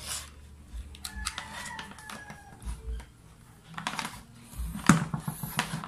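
Electrical plug and cord handled and pushed into an extension-cord socket, giving a run of clicks and knocks, the sharpest about five seconds in.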